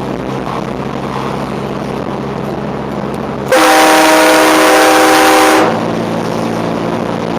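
Aftermarket train horn on a 2006 Scion xB sounded once for about two seconds, about halfway in, several steady notes at once. A steady low hum of the car runs before and after it.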